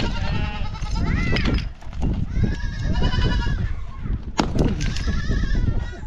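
Goats bleating repeatedly in wavering, quavering calls, with a single sharp knock of a sledgehammer striking rock about four seconds in.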